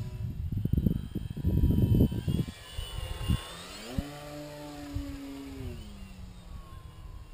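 Gusts of wind rumble on the microphone for the first couple of seconds. Then the brushless electric motor and 12x6 propeller of an RC aerobatic plane are heard as a steady whine that rises in pitch as the plane passes low, holds, and drops in pitch as it climbs away.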